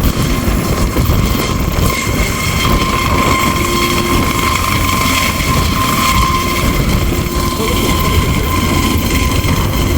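Helicopter running close by: a loud, steady rush of engine and rotor noise with a thin, steady whine.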